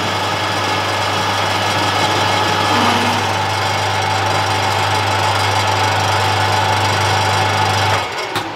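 Metal lathe turning steel at a 2 mm depth of cut: steady motor hum with the noise of the cut. It stops abruptly about eight seconds in, followed by a single click.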